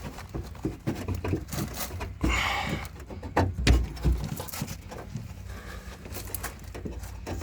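A flat screwdriver prying and levering a part loose inside a car door: irregular clicks and knocks, a brief scrape about two seconds in, and a few heavier thumps around three and a half to four seconds in.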